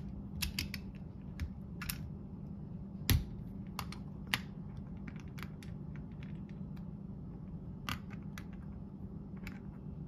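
Small metal parts inside an opened Emtek mortise lock clicking and tapping as they are handled and fitted, with a sharper knock about three seconds in.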